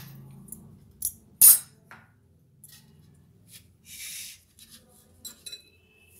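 Ceramic dishes clinking on a countertop as a bowl is set down and a plate of small bowls is shifted: two sharp clinks about a second and a half in, the second the loudest, then a short scraping slide about four seconds in and a few light clicks near the end.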